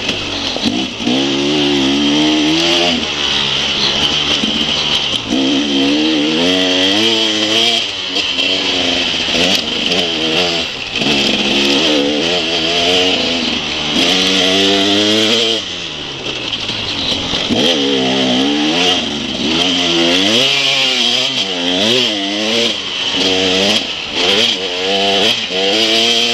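Enduro motorcycle engine heard from on board, revving hard and falling back over and over as the rider opens and closes the throttle.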